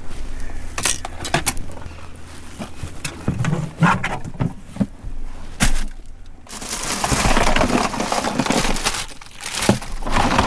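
A few sharp knocks and clacks of gear and the cooler's hard plastic lids, then ice crunching and shifting as a hand digs into a cooler full of ice, starting a little past the middle.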